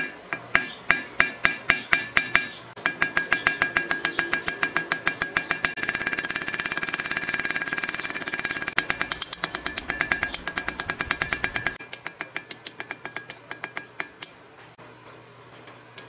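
Small hammer striking a steel knife blade held on an anvil block, texturing it with dimples. The strikes come at about four a second at first, speed up into a rapid near-continuous run in the middle, then slow and stop shortly before the end. Each blow rings with a bright metallic tone.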